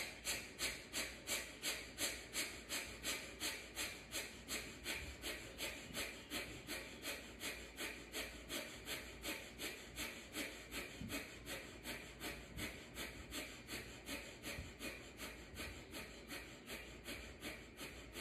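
Breath of fire: a woman's rapid, forceful rhythmic breathing through the nose, pumped by the belly at about three short exhales a second. The strokes grow a little fainter toward the end.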